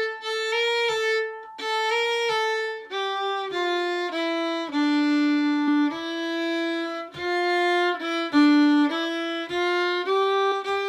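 Solo fiddle playing a Swedish folk tune, one bowed melody line with notes changing about every half second. The tune starts higher with a few short breaks between strokes, moves lower in the middle and climbs back near the end.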